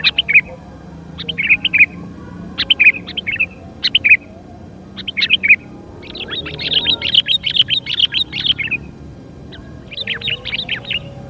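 Sooty-headed bulbuls calling: short bubbly chirp phrases about every second, then a longer dense run of chattering from about six to nine seconds in, and another short burst near the end.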